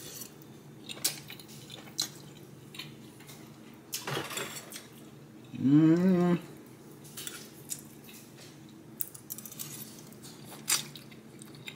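Metal fork clinking and scraping on a ceramic plate, a few scattered clicks, with a short hummed voice sound, rising then falling, about six seconds in.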